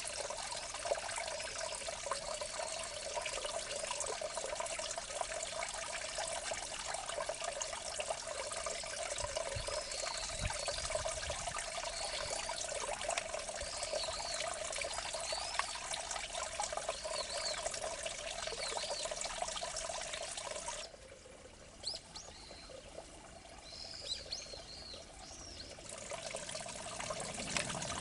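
Water trickling and running in a small irrigation ditch, a steady rushing hiss, with small birds chirping repeatedly over it. About three quarters of the way through the water sound drops away abruptly for roughly five seconds, leaving the bird chirps, then comes back.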